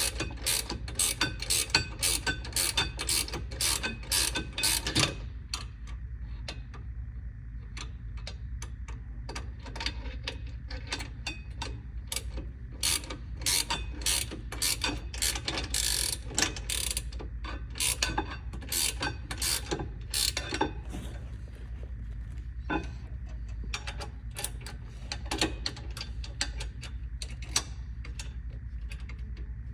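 Hand ratchet wrench clicking in quick runs as bolts are turned, with pauses between the runs and a few single clicks.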